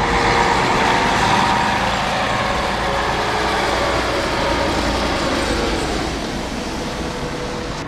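Thunder from a nearby storm: a rumble that starts suddenly, rolls on for several seconds and slowly dies away.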